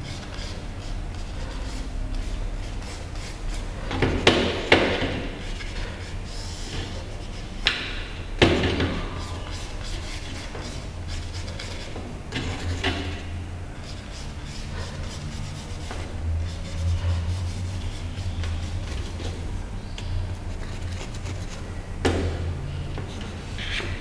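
Paintbrush rubbing over the painting on an easel board, with a few louder scratchy strokes several seconds apart over a steady low hum.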